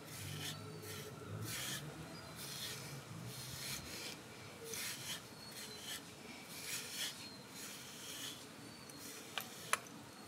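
Grooming brush raking through a husky's thick coat in repeated scratchy strokes, roughly one a second, with two sharp clicks near the end.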